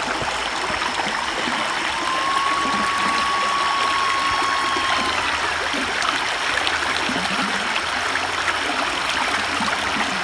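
Steady rush of a river's flowing water. A thin, flat, held tone sounds over it for about three seconds, starting about two seconds in, and a faint high steady tone runs underneath.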